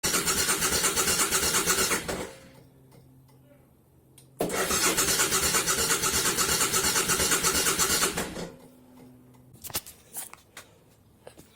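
Starter motor cranking the 2000 Suzuki VL1500 Intruder's 1500 cc V-twin in two bursts, about two seconds and then about four seconds, without the engine running. The bike has sat for ten years. A faint hum sounds between the bursts, and a few clicks come near the end.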